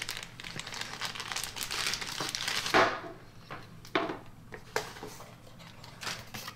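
Clear plastic bag crinkling as a coiled power cable is pulled out of it. After about three seconds this gives way to a few light knocks and taps as the cables are laid down on a wooden table.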